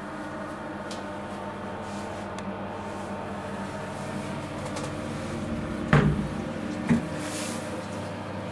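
Tiled, aluminium-framed plumbing access hatch being opened: a sharp clack about six seconds in and a lighter knock a second later, over a steady hum.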